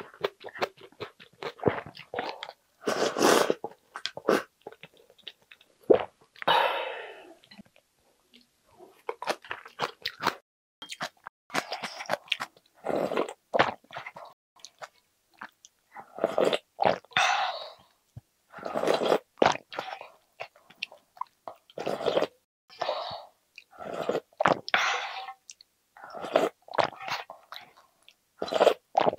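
Close-up slurping of ramen noodles and broth, sipped from a ladle, in repeated bursts of about a second each, with wet chewing and small clicks between them.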